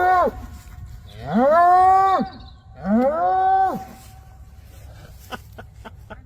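Cattle mooing: the end of one call, then two more drawn-out, fairly high calls about a second long each, each rising at the onset and dropping off at the end. A few sharp clicks follow near the end.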